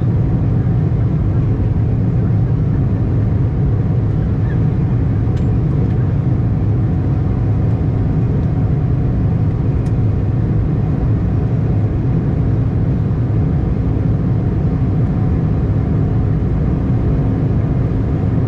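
Steady cabin noise aboard an Embraer E175 jet airliner: a loud, even low rumble of the engines and airflow, with a steady hum running through it.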